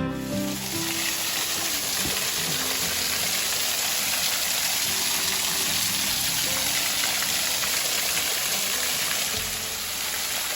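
Small woodland waterfall on a little creek, water pouring and splashing in a steady rush.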